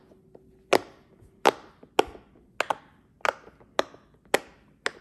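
Silicone pop-it fidget toy being popped, its bubbles pressed in one after another: a series of sharp pops about twice a second.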